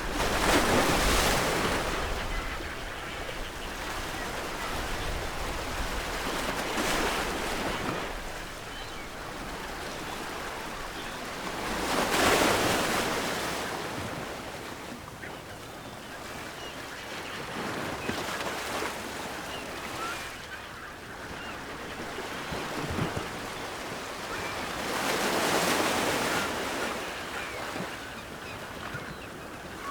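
Ocean waves breaking on a shore, the wash swelling and falling back about five times, one surge every five or six seconds.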